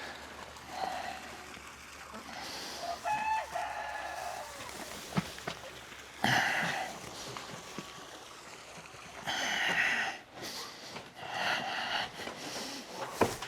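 Farm animals calling: a handful of separate calls, each under a second long and a few seconds apart, the loudest about six, nine and a half and eleven and a half seconds in.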